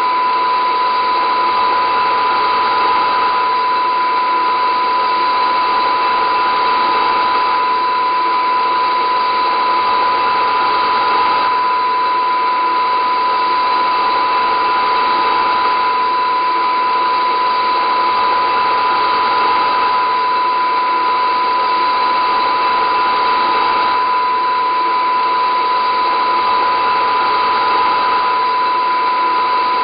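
A steady, unchanging whirring drone with a strong, constant high tone running through it and fainter steady tones around it.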